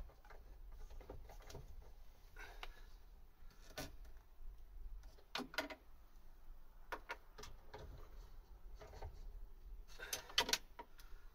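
Scattered light clicks and knocks of a tool and parts being worked inside a stripped car door while the wing mirror's mounting nuts are fitted and tightened, with a cluster of sharper clicks about ten seconds in.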